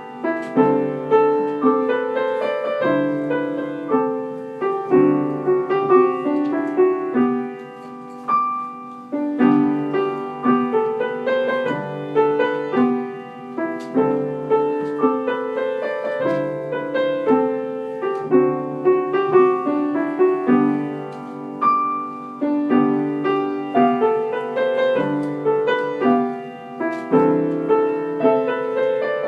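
Piano music: a continuous stream of struck notes and chords, each sharply attacked and then fading.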